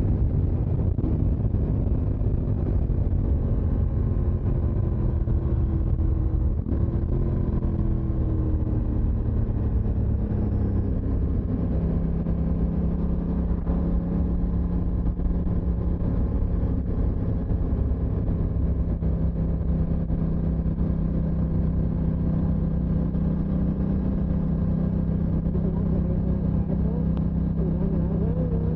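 Aprilia motorcycle engine running under way; its pitch drops gently over the first several seconds, then holds steady at an even cruise.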